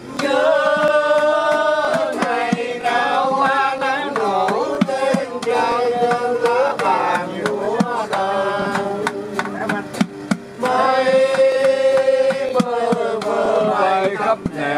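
Men singing a song together to a strummed acoustic guitar, with a few long held notes.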